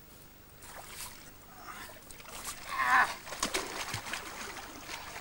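Shallow river water splashing and sloshing as a giant wels catfish is wrestled by hand, in irregular bursts. The loudest moment, about three seconds in, is a short voice-like cry.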